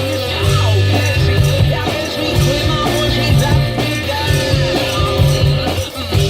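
One-man band playing a rock tune: a foot-played drum kit keeps a steady beat under a combination guitar and bass guitar.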